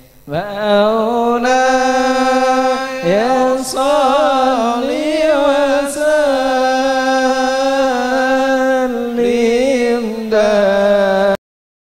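Chant-like singing: one voice holding long, wavering notes with ornamented turns, cutting off suddenly near the end.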